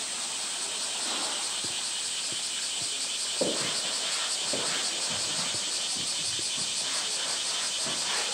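A steady, high-pitched chorus of cicadas, with scattered knocks and bumps from a polar bear handling a plastic barrel against a concrete pool ledge. The loudest knock comes about three and a half seconds in, and another follows a second later.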